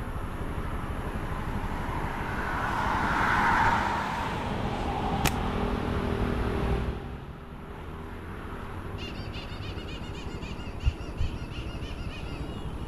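A road vehicle passing: its noise swells over a few seconds, then fades away. Faint high bird twittering follows, and there are two short knocks near the end.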